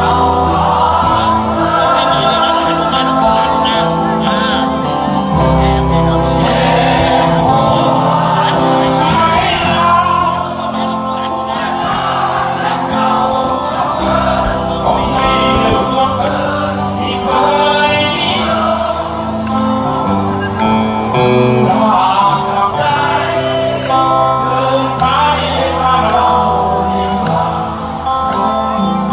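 A live band playing through a large stage PA: a lead singer sings over drums, bass guitar, keyboards and acoustic guitar. The music runs loud and unbroken.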